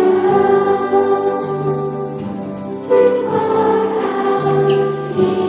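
Elementary-school children's choir and the whole student body singing a song together, with lower held notes sounding underneath the voices.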